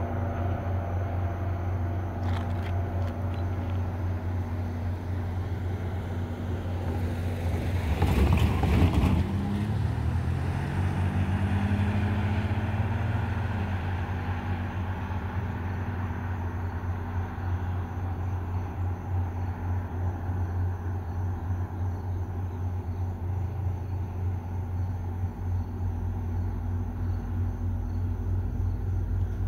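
A pickup truck driving past close by: its tyre and engine noise build to a peak about eight seconds in, then the engine note falls in pitch as it drives away. A steady low hum runs underneath.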